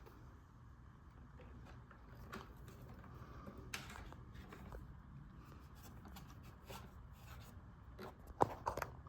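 Faint scattered clicks and taps over a low rumble, with a cluster of sharper clicks near the end; no vacuum motor is running.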